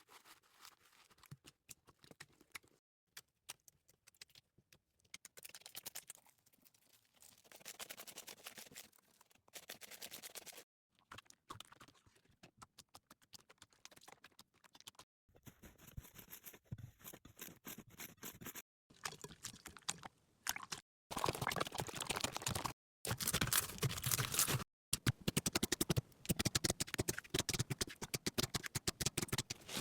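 Slime being squeezed and worked by hand, making fine sticky crackling and dense popping clicks, in a string of short clips that cut off abruptly several times; the clicking is loudest and densest in the last third. For a few seconds in the middle a faint high steady tone sits under it.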